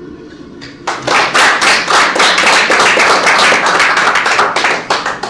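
Audience applauding, starting abruptly about a second in and dying away near the end.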